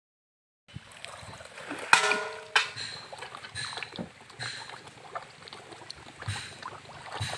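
Tilapia feeding at the pond surface, taking floating feed pellets: a run of small, irregular splashes and plops in the water. About two seconds in, a short pitched call cuts across the splashing.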